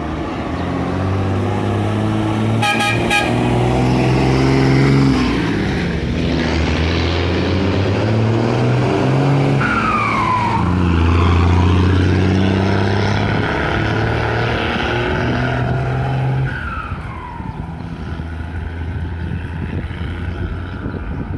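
Two diesel trucks' engines and exhaust rumbling loudly as they pass, the engine note rising and falling with the revs. A short horn toot comes about three seconds in, and two brief falling whistles follow, one about halfway through and one near the end.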